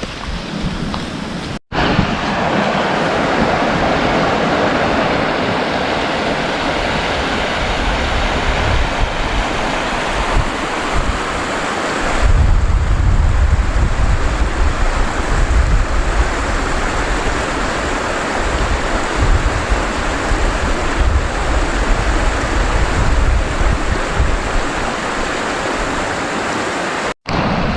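Strong wind blowing steadily and buffeting the microphone, with heavier low rumbling gusts from about halfway through. The sound drops out abruptly for an instant twice.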